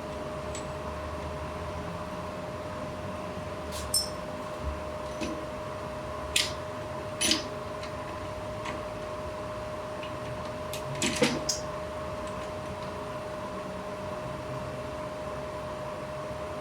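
Steady mechanical hum with a few scattered sharp clicks, the loudest a quick cluster about two-thirds of the way through.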